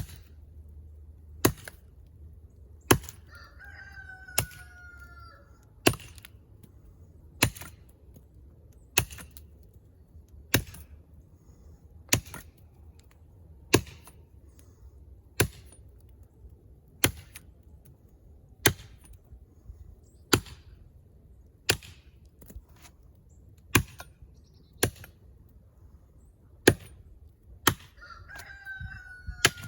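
A heavy brush knife with a 13-inch steel blade chopping into the trunk of a small tree, cutting the felling notch, with sharp strokes about every second and a half. A rooster crows twice, once a few seconds in and once near the end.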